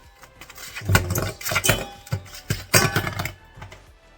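Several sharp knocks and rattles from a plastic ice-cube tray being handled and cracked, ice cubes clattering.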